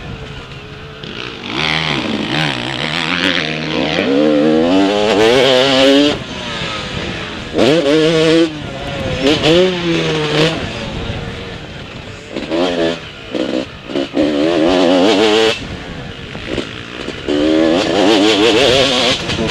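Motocross bike engine heard from the rider's helmet, revving up hard and cutting off abruptly five or six times as the throttle is opened and shut, over a steady rushing hiss.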